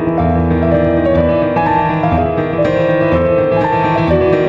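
Background piano music: a slow melody of held notes over sustained bass notes.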